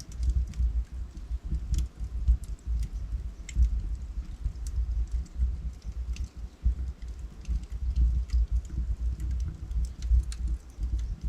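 Wood fire crackling, with frequent sharp, irregular pops over a low fluttering rumble from the burning logs.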